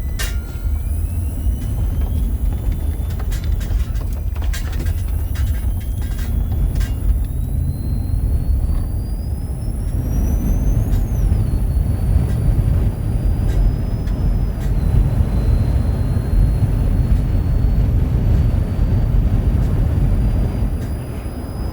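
Road and wind noise from a vehicle driving in heavy wind: a loud, steady low rumble. A few sharp clicks come in the first several seconds, and a faint high whine slowly rises in pitch.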